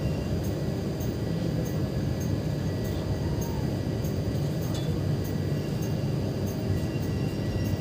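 Steady running noise of a moving Indian Railways passenger train, heard from an open coach doorway: an even rumble of wheels on rails, with faint ticks about twice a second.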